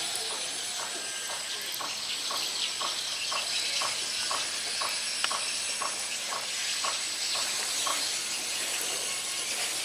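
Outdoor insect chorus, a steady high hiss, with a short call repeating about twice a second that stops about eight seconds in.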